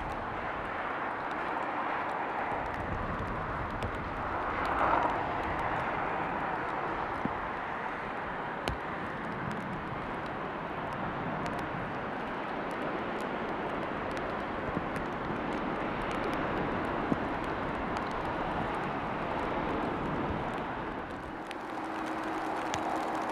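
Steady rushing jet engine noise from a Cessna 680A Citation Latitude business jet's twin turbofans, swelling briefly about five seconds in. Near the end the noise dips and a low steady hum comes in.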